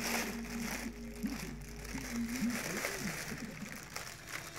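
A person's voice humming one long held note that then wavers up and down for about a second before trailing off. Light crinkling of inflated plastic air-cushion packaging sits underneath.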